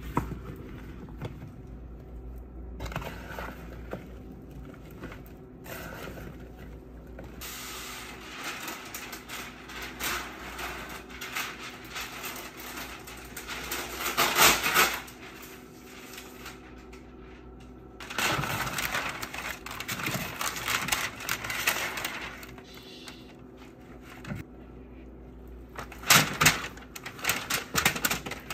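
Kitchen prep noises over a steady low hum: a silicone spatula scraping and stirring sliced squash and zucchini in a plastic mixing bowl, parchment paper rustling, and near the end the seasoned vegetables sliding out of the bowl onto a parchment-lined sheet pan.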